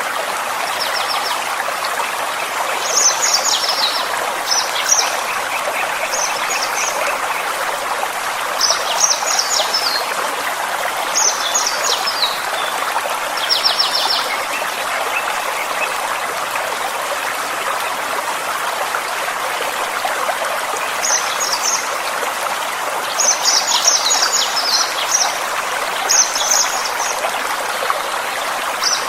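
Forest stream running steadily, with a small songbird repeating short, high phrases of rapid notes every second or two, falling silent for several seconds midway.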